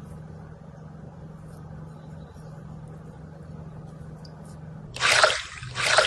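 Slime being squeezed by hand: a quiet stretch with only a faint steady hum, then two loud squishes about a second apart near the end.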